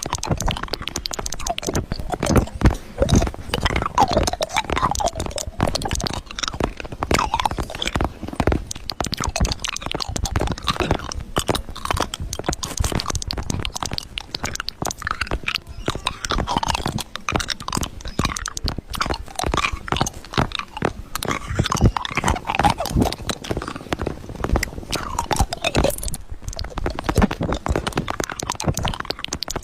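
Continuous irregular crunching and crackling, like chewing, with a few short sliding tones now and then.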